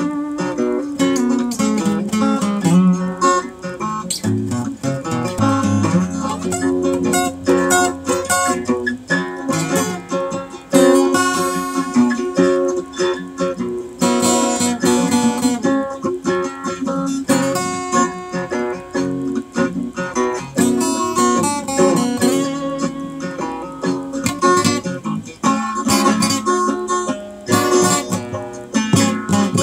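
Acoustic guitar played without singing: a steady run of picked notes and chords.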